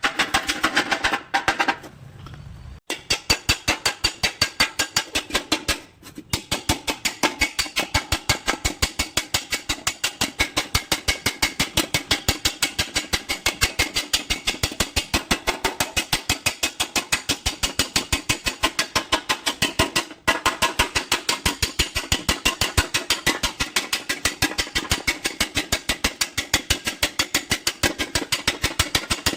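Background music with a fast, steady percussive beat, broken off briefly three times.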